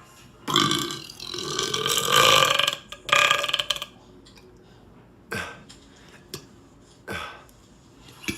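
A man burping loudly on command: a long burp of about two and a half seconds, rising in pitch, then a shorter one right after. Three brief sharp sounds follow in the second half.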